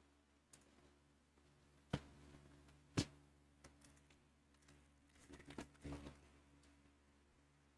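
Quiet handling of trading cards and packs: two sharp taps about two and three seconds in, then the crinkling of a foil card pack being torn open about five seconds in.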